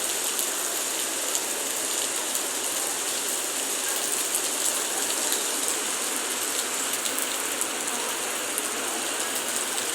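Heavy rain falling steadily: a dense, even hiss with many small drop taps, with runoff water rushing over the pavement.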